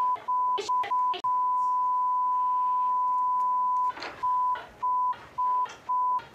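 Broadcast censor bleep: a steady beep tone laid over a woman's shouted swearing. It cuts in and out in short pieces, with snatches of her yelling between them, and runs unbroken for nearly three seconds starting about a second in.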